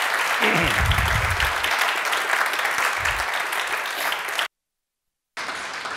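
Audience applauding, a dense steady clapping of many hands. Near the end the sound cuts out completely for about a second, then the applause returns more faintly.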